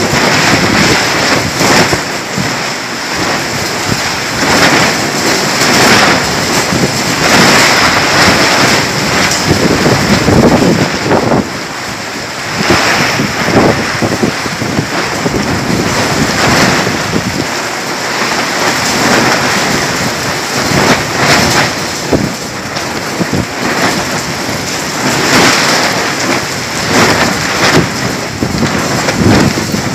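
Heavy storm rain pouring down, a dense loud hiss that keeps swelling and easing.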